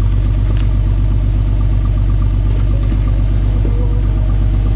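Rock buggy's engine running loud and steady at a constant pitch as the buggy crawls up a steep rock ledge with its front wheels in the air.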